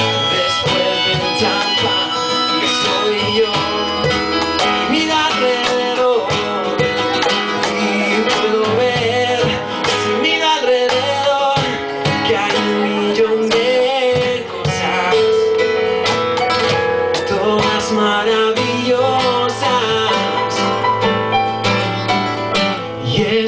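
Live acoustic band playing an instrumental passage: strummed acoustic guitar with keyboard and cajón keeping the beat.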